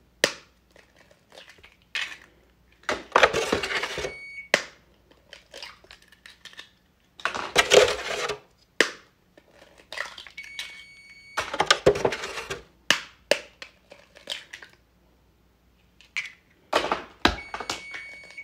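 Hen's eggs being cracked and pulled open by hand over a plastic mixing bowl, one after another: a cluster of sharp cracks and shell noise about every four seconds.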